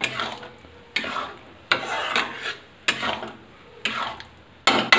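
A spatula stirring thick curry gravy in a metal kadhai, scraping against the pan in about six strokes roughly a second apart.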